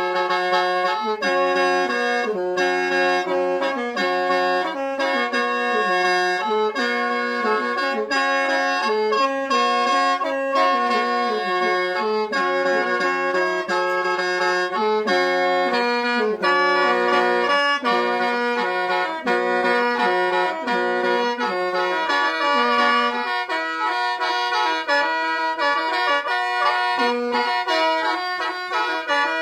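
Khaen, the Lao bamboo free-reed mouth organ, played solo: a running melody in chords over a sustained drone. The low held note drops out about two-thirds of the way through, while the melody carries on.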